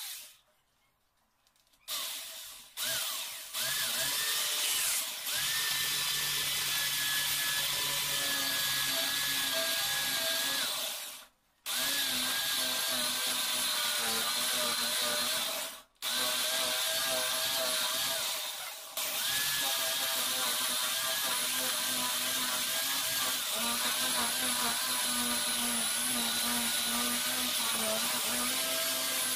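Corded electric drill with a spade bit boring into the edge of a wooden door. The motor whines steadily after a couple of short starts, cutting out briefly a few times.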